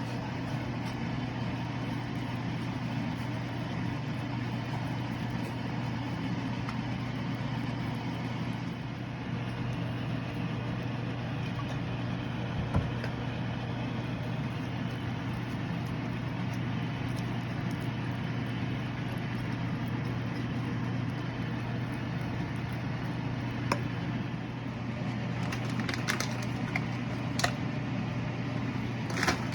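A steady low mechanical hum with an even hiss, broken by a few light clicks near the end.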